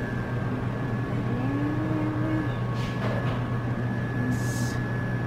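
Steady low mechanical hum with two faint high steady tones over it, and a brief hiss about four and a half seconds in.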